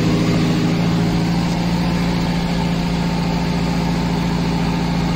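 Mahindra jeep's 2.5 CRDe common-rail diesel engine roaring with a steady drone, heard close to the microphone.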